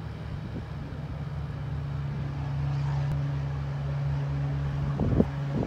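Cessna 182 piston engine and propeller running steadily at a drone, growing louder about two seconds in. A few short thumps on the microphone come near the end.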